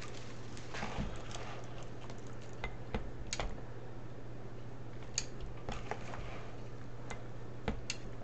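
Plastic deco mesh rustling as it is unrolled and smoothed flat by hand on a cutting mat, with scattered light clicks and taps. A steady low hum runs underneath.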